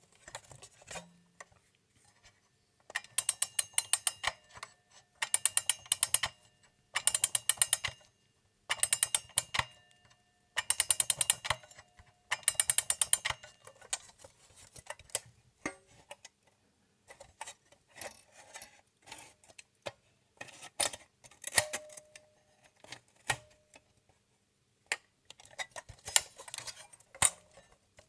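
Old Italian mechanical alarm clock's bell ringing in six short bursts of rapid hammer strikes, each about a second long, followed by irregular clicks and brief rattles of its clockwork.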